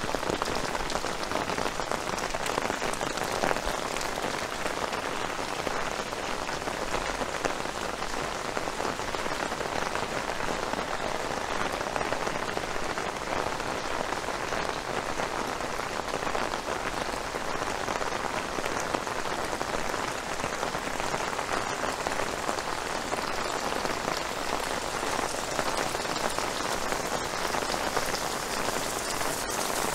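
Steady rain falling in a dense, even patter of drops with no letup.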